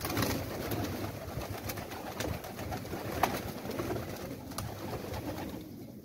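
A flock of domestic pigeons flapping their wings as they fly down from a rooftop, a dense clatter of wingbeats that starts at once and thins out near the end.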